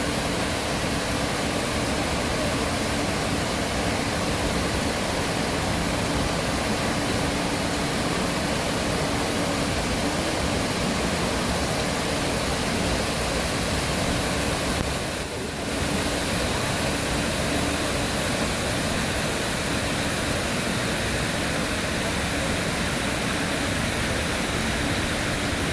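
Artificial waterfall: water falling in a steady, continuous rush, with a brief dip in level about fifteen seconds in.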